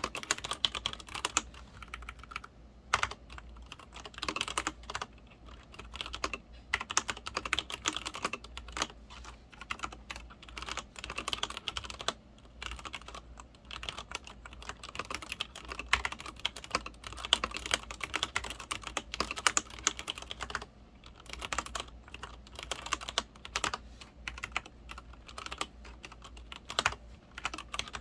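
Continuous typing on a Leopold FC900R-PD mechanical keyboard with Cherry MX Red linear switches: rapid, irregular key clicks and clacks in runs, broken by a few brief pauses.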